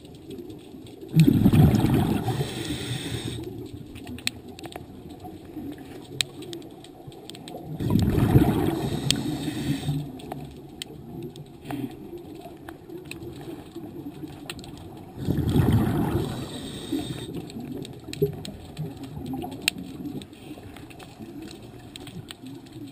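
A scuba diver's exhaled breath bubbling out of the regulator underwater: three bursts of bubbles about seven seconds apart, each lasting about two seconds, with faint clicks between.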